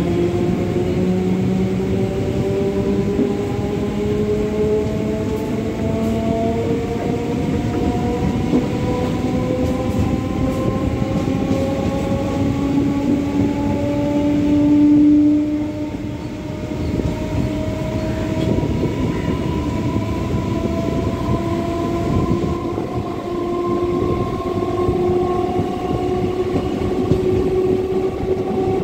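Electric multiple unit (EMU) suburban train running, heard from on board, with the wheels rumbling on the track. The electric motors whine in several tones that climb slowly in pitch as the train gathers speed. A brief louder tone comes about halfway through.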